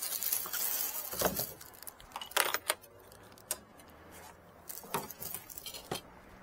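A few separate clicks and light knocks of hand tools and small hardware being handled while the roof lights are fitted, after a brief rustle at the start.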